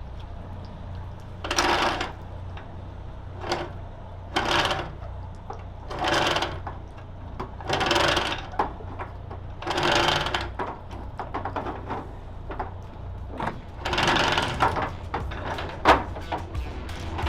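Anchor windlass hauling in chain in short spurts, about one every two seconds, over the steady low hum of the idling engines.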